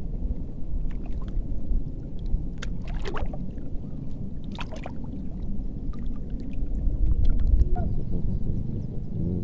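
Strong wind rumbling on the microphone over water lapping around a wader, with a few short splashy sounds about three and five seconds in.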